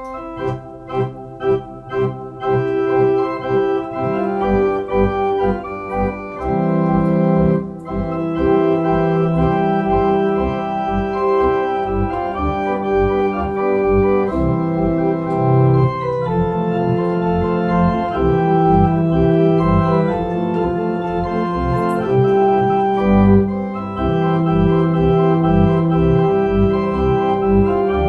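Two-manual console organ playing a military medley: it opens with short detached chords, then moves into full held chords over a deep pedal bass line.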